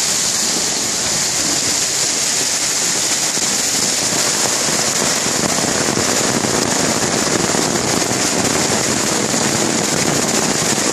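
Heavy hailstorm: hailstones and rain pelting down hard and steadily, a dense crackle of countless small impacts.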